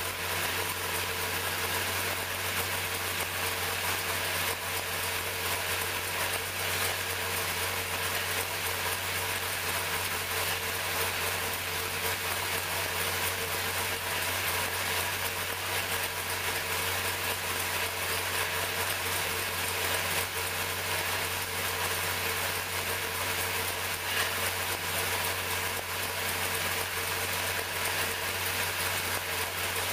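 434 ci small-block Chevrolet V8 racing engine idling steadily on an engine dyno, with no revving.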